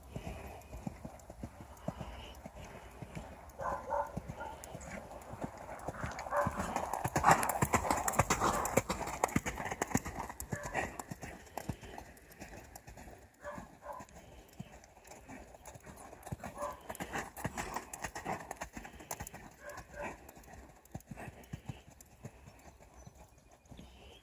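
Horse trotting on a sand arena: a run of hoofbeats on sand, loudest about a third of the way in.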